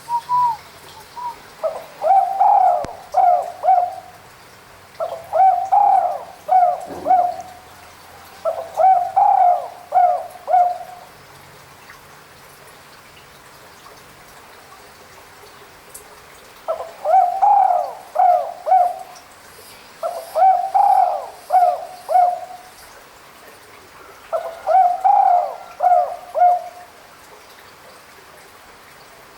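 Spotted dove (tekukur) cooing. It gives a short note at the start, then three phrases of several coos each, goes quiet for about six seconds, and gives three more phrases.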